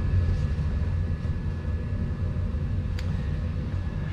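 A steady low mechanical drone with a faint held whine above it, and a single sharp click about three seconds in.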